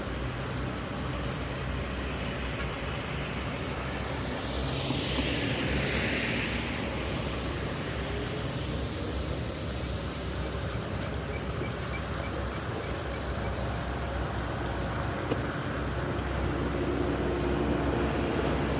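A vehicle passes by, its noise swelling and fading between about four and seven seconds in, over a steady low rushing noise.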